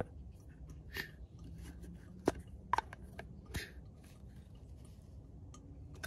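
Lid of a Cera+ Pro portable espresso machine being pressed and turned onto its rubber seal, giving about four soft, scattered clicks, the sharpest just over two seconds in.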